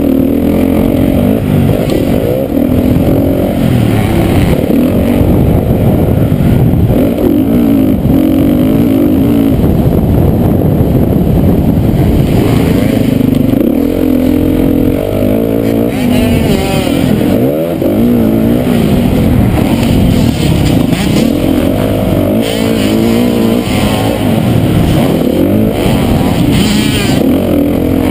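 Motocross bike's engine racing hard on a dirt track, heard up close from an on-board camera. The revs keep rising and falling as the rider opens and closes the throttle through corners and jumps.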